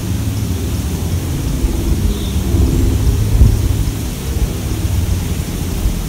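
Wind buffeting the microphone outdoors, a loud, steady low rumble.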